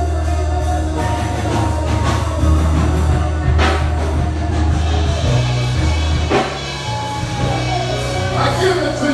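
Live church band music under an altar-call prayer: long sustained bass notes and held keyboard chords, with a few drum and cymbal hits and some singing.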